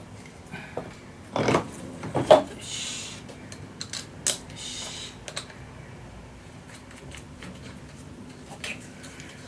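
Clicks and metal knocks of hand work on a Honda Dio scooter's rear wheel, with two louder knocks about a second and a half and two seconds in and two short hisses soon after, then scattered lighter clicks.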